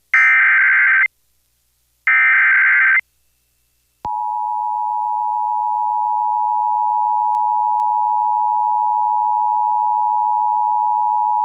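Emergency Alert System header: the last two of three one-second bursts of screeching SAME data tones, a pause, then from about four seconds in the steady two-tone EAS attention signal.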